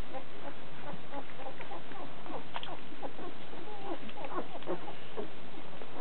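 A litter of very young puppies squeaking and whimpering: a quick, irregular run of short, high, sliding squeaks from several pups at once.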